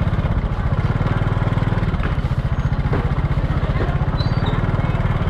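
A small engine running steadily with a rapid, even low chugging, under faint market chatter.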